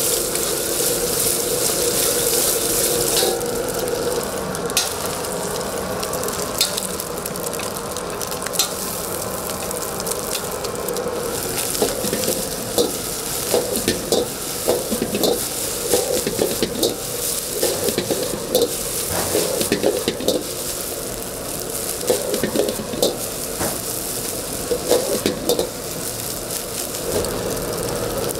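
Egg fried rice sizzling as it is stir-fried in a wok. A loud hiss comes in the first few seconds, and from about the middle on a metal ladle clacks and scrapes against the wok in quick runs of strikes.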